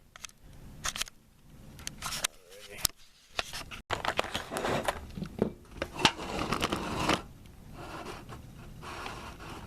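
Scattered clicks and scrapes of rifle parts and tools being handled on a workbench, busiest through the middle, with no steady sound.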